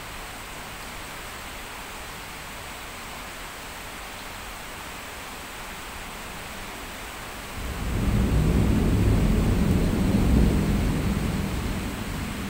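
Steady heavy rain hiss. About two-thirds of the way through, a low rumble of thunder comes in, stays loud for a few seconds, then slowly fades.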